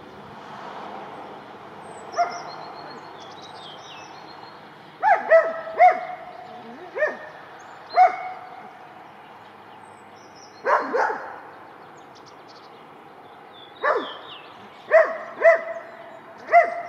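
A dog barking at a red squirrel up in a tree: about a dozen sharp barks in irregular groups of one to three, with pauses of a second or more between groups.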